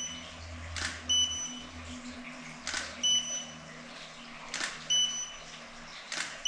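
A camera shutter clicks as the studio strobes fire, four times about every two seconds. A moment after each click comes a short high beep from the strobe, signalling that it has recycled and is ready to fire again.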